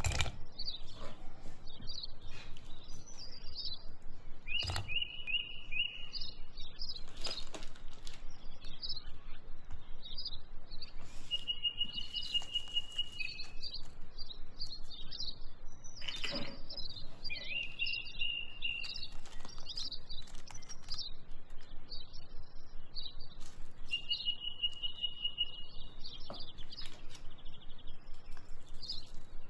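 Birdsong ambience: many small birds chirping, with a trill held about a second and a half coming back every few seconds. A few soft knocks of ingredients dropping into a ceramic baking dish.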